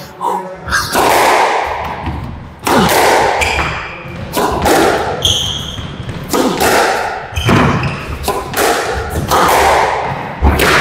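Squash rally: the ball struck by rackets and smacking off the court walls about once a second, each hit echoing in the enclosed court, with a short squeak about halfway through.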